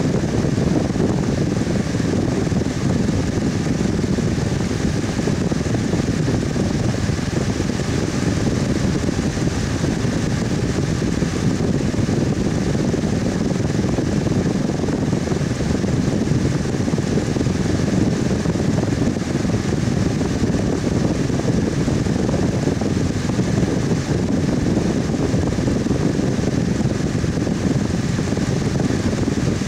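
Electric fan running steadily: a constant whooshing hum, strongest low down, with a faint steady whine above it.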